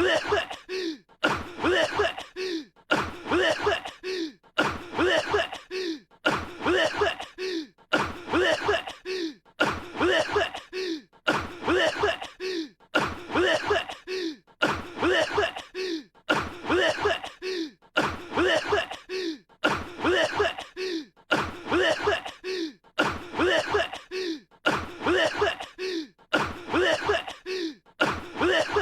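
A young man's voiced coughing from an anime voice track, the same short fit repeated about once a second in a steady loop: coughs from a cold.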